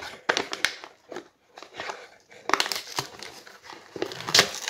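Foil-lined paper wrapper of a packet of wine gums crinkling and tearing as hands pull it open, in irregular crackles that come thicker in the second half.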